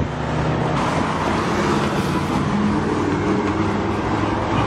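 Road traffic noise with a vehicle engine running steadily, from roadside video footage played back through the lecture hall's speakers.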